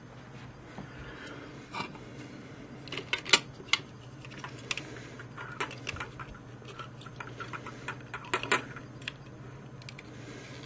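Clear plastic circuit-board enclosure being handled and fitted together by hand: scattered light plastic clicks and knocks, the loudest about a third of the way in and again near the end, over a steady low hum.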